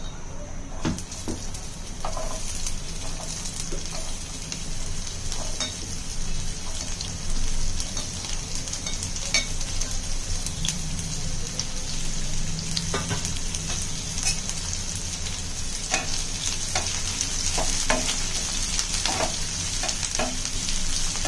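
Chopped onion frying in hot oil in a pan: a steady sizzle that starts about a second in, with scattered knocks and scrapes of stirring.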